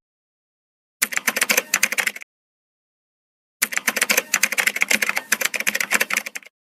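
Rapid typing on keys: a run of quick clicks lasting about a second, a pause, then a longer run of about three seconds.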